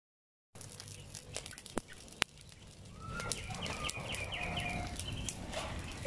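A burning pile of dry leaves crackling, with sharp pops in the first couple of seconds. From about three seconds in, chickens cluck with short repeated calls.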